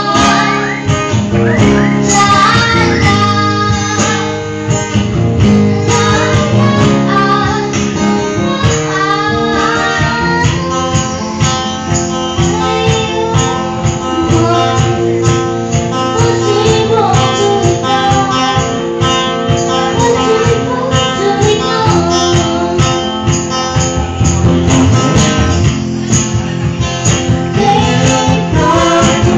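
Live acoustic guitar strumming with sung vocals through microphones, over a steady beat.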